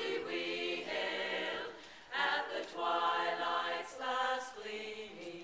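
A choir singing, holding long notes, with a short break about two seconds in.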